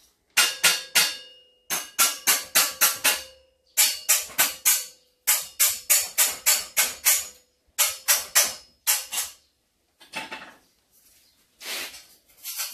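Background music: a tune of short, bright, struck notes in quick runs of three to five, each ringing briefly, with a few pauses between runs.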